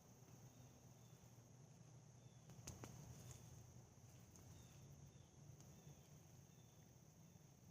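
Near silence outdoors, with insects faintly and steadily trilling and one soft click a little under three seconds in.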